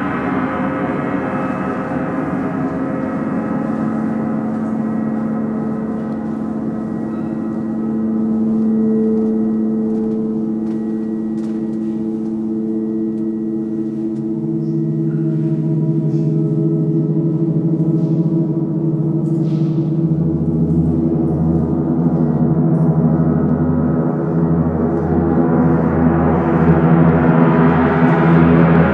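Large hanging gongs resonating in a sustained drone of many overlapping tones. A deeper tone joins about halfway through and a low hum comes in later, as the sound swells louder toward the end.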